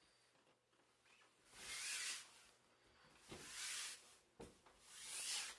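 A hand rubbing over a PhotoTex fabric adhesive sticker on a door: three soft swishes about a second and a half apart, with one sharp click between the second and third.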